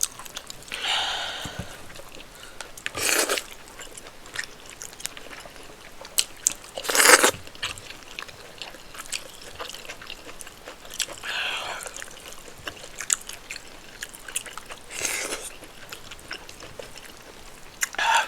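Close-miked eating sounds of rice, spinach stew and chicken: wet chewing and smacking clicks throughout, with short noisy bursts every few seconds, the loudest about seven seconds in.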